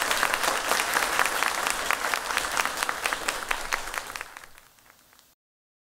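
Audience applauding, a dense clapping of many hands that dies away from about four seconds in and then cuts off suddenly.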